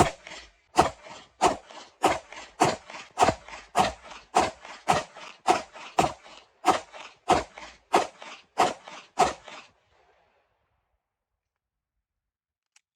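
Glock 45 9mm pistol fired in one steady string of about sixteen shots, roughly one every 0.6 seconds, each with a short echo, ending about three-quarters of the way through. There are no pauses between shots: the pistol is cycling without stoppages.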